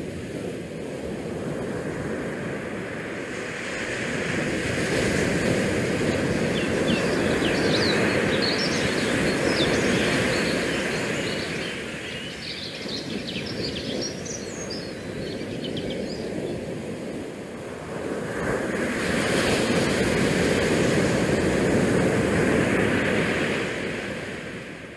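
Wind buffeting a GoPro microphone in gusts, over the wash of bay water against the pier and the rock seawall. A run of short high chirps comes through in the middle.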